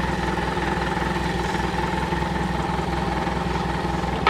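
Old Jeep's four-cylinder petrol engine idling steadily with an even, low pulsing beat, all four cylinders firing. The engine has just been revived after sitting unused for about five years.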